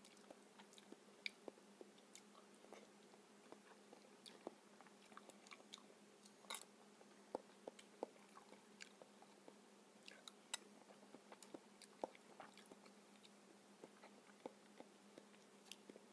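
Quiet eating of soft ripe papaya with a metal spoon: chewing and the spoon scooping the flesh give scattered, irregular small clicks, over a faint steady hum.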